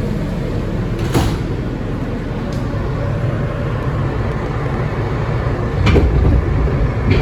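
Inside an R160B Siemens subway car pulling out of a station: a steady low rumble of the train's motors and wheels. There is a sharp clack about a second in, and heavier clunks near six and seven seconds as the rumble gets louder.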